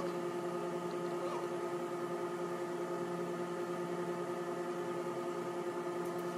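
A steady hum made of several fixed tones, unchanging throughout.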